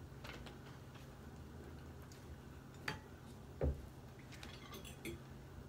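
Faint clinks and taps of forks on plates during a meal, with one louder dull thump a little past the middle as a plastic salad-dressing bottle is set down on the table. A low steady hum runs underneath.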